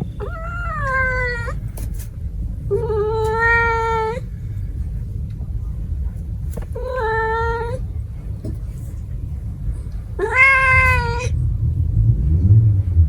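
A cat meowing four times, each meow a drawn-out call of about a second, with a low steady rumble underneath.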